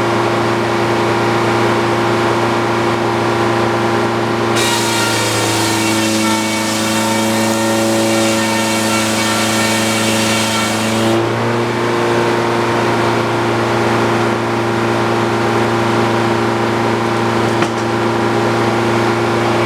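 Old Frick circular sawmill running steadily. From about four and a half seconds to eleven seconds the blade cuts through a log, adding a loud hiss, and the drone drops in pitch under the load of the cut.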